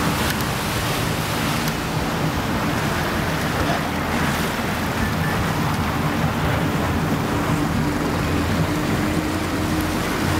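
Motorboat under way: its engine running with a steady hum, under the rush of water past the hull and wind.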